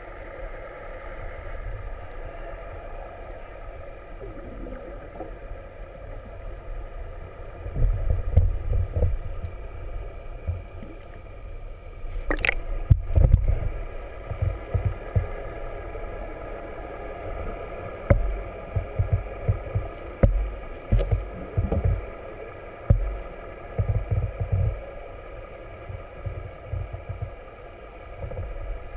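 Muffled underwater sound picked up through a camera's waterproof housing: a steady hum with irregular low thumps and rumbles of water moving around the camera, and one sharp knock a little before halfway through.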